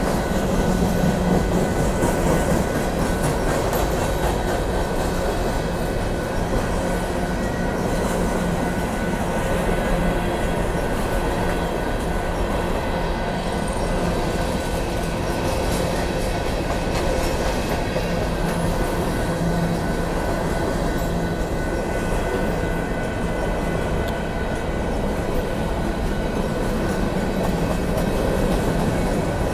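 Union Pacific grain train of covered hopper cars rolling steadily past a grade crossing: a continuous rumble with the wheels clacking over the rail joints.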